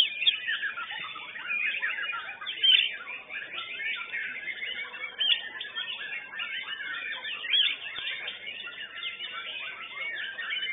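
White-rumped shama (murai batu) singing non-stop: a rapid, varied stream of whistles and chirps with no pauses, some notes louder than the rest.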